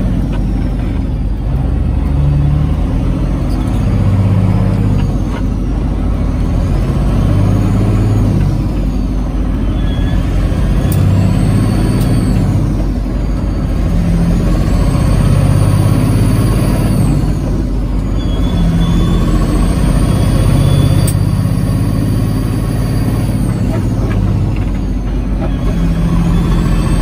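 Diesel engine of a 1997 Peterbilt 379, heard from inside the cab while the truck is driven through the gears of its 15-speed manual transmission: the engine pulls, then the revs drop and pick up again at each shift, about five times. A high whine rises and falls with the revs on each pull.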